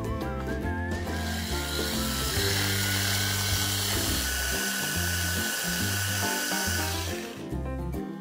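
Hand blender's electric chopper attachment running, its blades cutting onion chunks down to a paste. The motor starts about a second in with a steady whine and stops shortly before the end, over background music.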